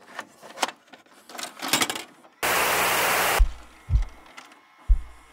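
Horror title sound design: scattered crackling clicks, then a sudden one-second burst of loud static. After it come low, deep thumps in pairs, like a slow heartbeat.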